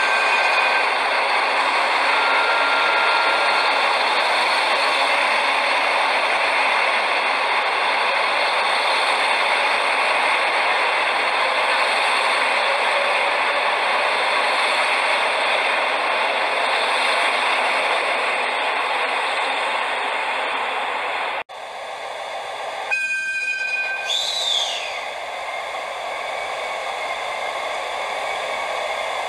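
Model train running on the layout track: a steady running noise that cuts off abruptly about three-quarters through, followed by a brief two-tone horn and a quick falling whistle-like tone.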